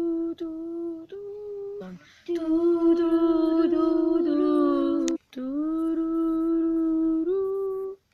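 A person humming long, steady held notes at a fairly high pitch, with short breaks between them and a small step up in pitch near the end.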